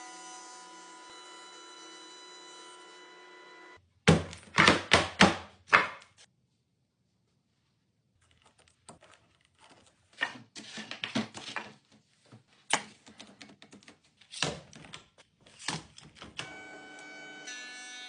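A burst of about six loud sharp knocks, then after a short pause a long run of irregular lighter knocks and clicks, set between stretches of steady sustained tones at the start and again near the end.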